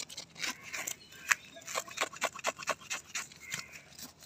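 Knife blade scraping the scales off a hybrid tilapia on gravelly ground: quick, uneven rasping strokes, one sharper stroke about a second in.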